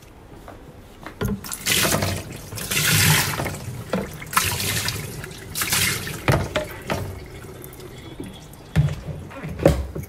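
Water poured from a plastic mug splashing into the plastic tub of a semi-automatic washing machine to rinse it, in several pours over the first seven seconds. Two short knocks near the end.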